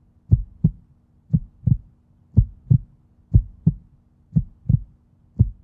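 Heartbeat sound: paired low thumps, lub-dub, about once a second, over a faint steady low hum.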